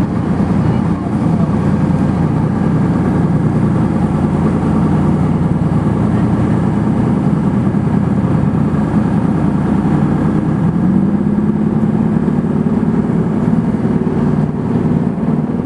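Boat engine running steadily with a loud, low drone.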